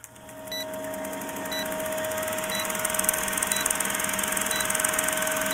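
Vintage film-projector countdown sound effect: a steady mechanical whirr with hiss, crackle and a low hum, fading in over the first couple of seconds. A short high beep sounds about once a second as the leader counts down.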